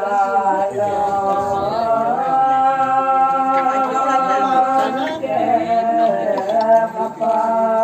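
A voice singing a slow, unaccompanied devotional chant in long held notes, sliding to a new pitch a few times.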